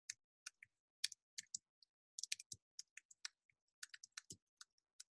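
Typing on a computer keyboard: faint, irregular key clicks, coming in quicker runs about two seconds in and again about four seconds in.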